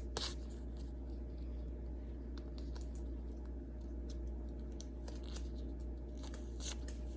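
Faint, scattered light clicks and rustles of small items being handled, over a steady low hum.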